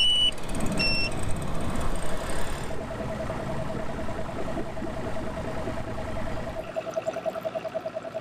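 Mercury OptiMax Pro XS 250 outboard being started from the key: the warning horn beeps twice as the key is turned, then the two-stroke V6 runs and settles to a steady pulsing idle about three seconds in. This is the cold warm-up on a new powerhead at the start of its break-in.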